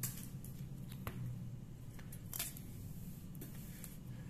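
A few faint separate clicks and scrapes of a chef's knife working a green bell pepper on a plastic cutting board, over a low steady hum.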